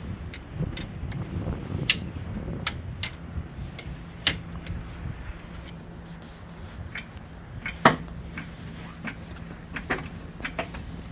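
Scattered metallic clicks and clanks of tools and wheel parts being handled during a tyre change, the loudest knock about eight seconds in, over a steady low hum.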